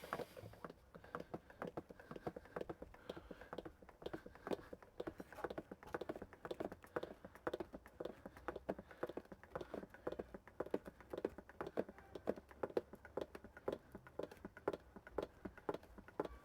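Hand oil pump clicking with quick repeated strokes, about three a second, as gear oil is pumped into the differential.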